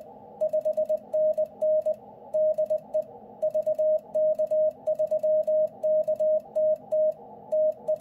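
Icom IC-705 CW keyer sidetone sending a stored memory in Morse code, a steady tone of about 600 Hz keyed in dots and dashes. The message is a signal report with the sender's call sign, '5NN DE VK3KTT TU'. Between characters, faint receiver hiss can be heard through the narrow CW filter.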